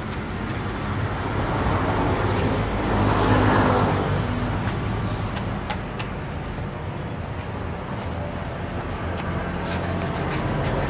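A motor vehicle engine running with a steady low hum, growing louder for a moment about three to four seconds in, with a few light clicks.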